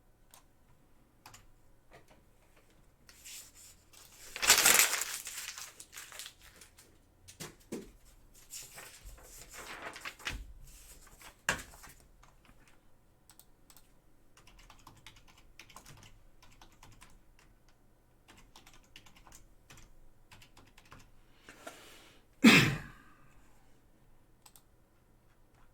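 Computer keyboard typing and clicking in scattered bursts, with two louder short noises, one about five seconds in and a sharper one near the end.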